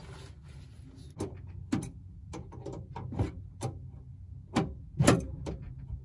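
Irregular light knocks and clicks of hands working with parts and fittings inside a stripped car interior, about ten in all, the loudest about five seconds in, over a steady low hum.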